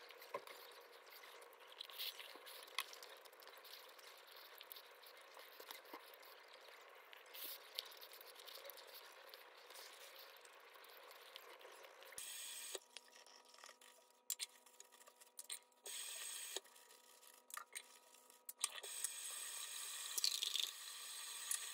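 Faint clinks of a metal spoon and fork against a ceramic bowl during eating. About halfway through, this gives way to the wet scrubbing and splashing of a sneaker being washed in soapy water at a sink, in short stretches with sudden breaks.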